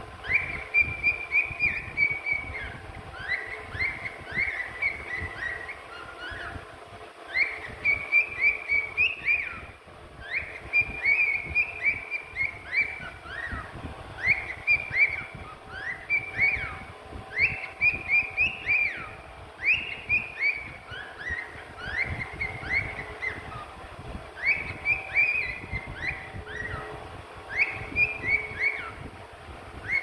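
Cockatiel singing: phrases of short chirping whistles, many sliding down in pitch, repeated every second or two with brief pauses between.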